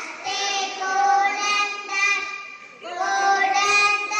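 Young children singing a melody in held notes, phrase by phrase, with a short break a little before the three-second mark.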